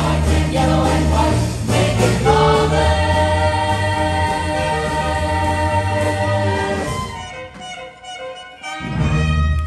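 Musical-theatre cast singing in chorus with instrumental accompaniment at the close of a number. The full chord is held for several seconds from about two seconds in and thins out around seven seconds, then a brief loud chord sounds near the end.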